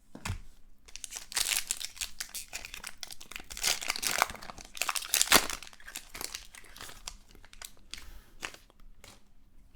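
A trading card pack wrapper being torn open and crinkled, a dense crackle for the first several seconds, then lighter scattered rustles and clicks of cards being handled.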